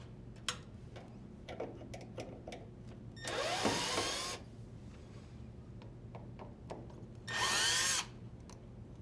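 Drill driver backing out screws in two short bursts, about three and seven seconds in, its motor whine rising and falling in pitch. Small clicks and rattles of screws and handling come between the bursts.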